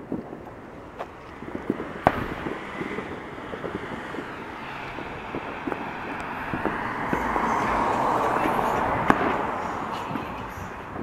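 Scattered firecracker pops and a few sharper bangs going off. A car drives past, swelling and fading, loudest about eight seconds in.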